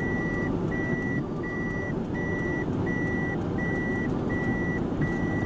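Electronic warning beeper sounding a steady high single-tone beep, about eight evenly spaced beeps, each roughly half a second long. Under it runs a steady low rumble.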